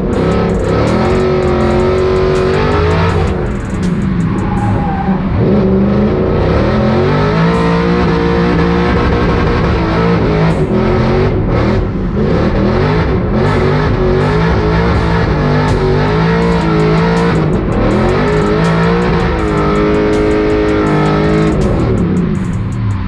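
BMW M5 V8 in an E36 drift car, heard from inside the cabin, revving hard, its pitch rising and falling again and again through the drift. Guitar music is laid over it.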